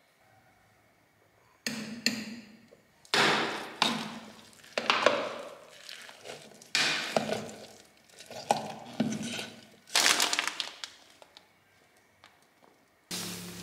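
Grated carrot and chopped scallions being mixed by hand in a clear bowl: about ten separate strokes of wet, crunchy rustling with light knocks against the bowl, roughly one a second. Near the end a plastic package starts to crinkle.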